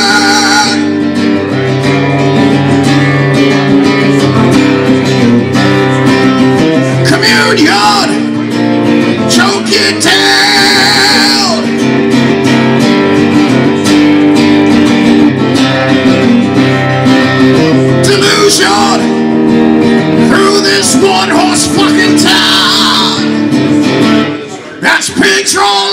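Live rock music: an electric guitar strummed through an amplifier, with a man singing into a microphone at times, and a brief drop in the music a second or so before the end.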